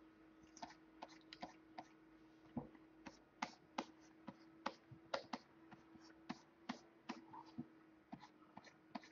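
Faint, irregular clicks and taps from hands working a computer's input devices, about two a second, over a faint steady hum.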